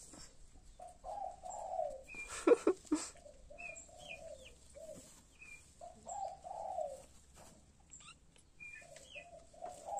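Birds calling: low warbling phrases of about a second, repeated every two to three seconds, and a few short high chirps between them. A brief loud sound comes about two and a half seconds in.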